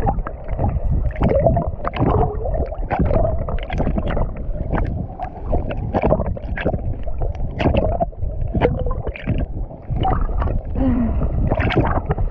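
Water gurgling and sloshing around a submerged action camera, heard muffled underwater. Irregular sharp splashing clicks come over a dense low rumble as a swimmer moves in the water.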